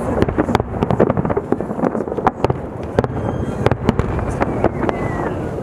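Fireworks display: aerial shells bursting in quick succession, many sharp bangs and crackles over a continuous rumble.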